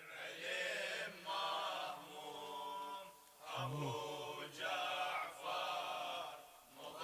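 Male voice chanting a Shia lament (latmiyya), drawing out long held, ornamented notes in several phrases with two short breaths between them.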